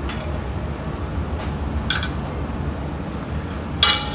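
Metal spoon clinking against a stainless steel serving tray: a faint tap at the start, a short ringing clink about two seconds in, and the loudest, ringing clink near the end. A steady low hum runs underneath.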